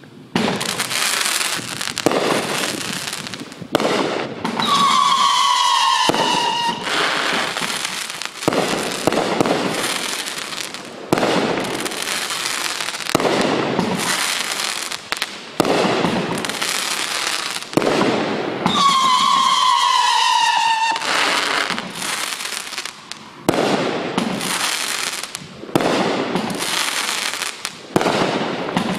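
Magnus Fireworks 'Midnight Howling' 500g 35-shot cake firing: a continuous run of launches with crackling tails and sharp burst reports. Twice, about five seconds in and again near twenty seconds, a long falling howling whistle from the cake's wolf howler shots sounds over the crackle.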